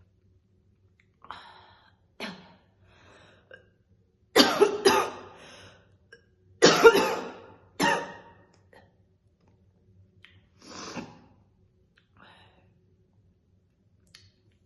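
A woman's heavy smoker's cough while smoking cigarettes: a couple of lighter coughs, then two loud fits of several hacking coughs about four and seven seconds in, and one more cough later on.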